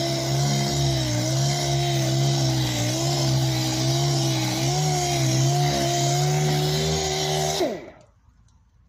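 Random orbital sander running steadily against a car's front wing, its pitch wavering slightly. Near the end it is switched off and winds down with a falling pitch.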